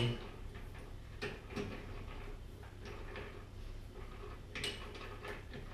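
A handful of separate light metal clicks and knocks as a steel end mill is fitted into a lathe's three-jaw chuck and the chuck is handled.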